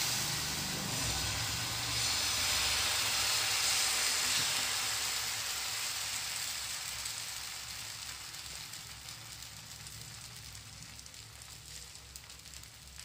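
Rice batter sizzling on a hot oiled non-stick pan as it is ladled on and spread, loudest at first and dying down steadily.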